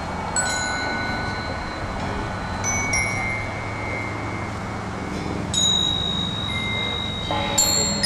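High, bell-like chime tones struck one at a time, each ringing on for a second or more, then a quick cascade of several notes near the end.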